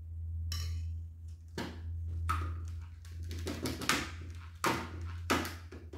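A chocolate mould filled with melted chocolate knocked against the counter several times, to settle the chocolate into the mould's points, over a steady low hum.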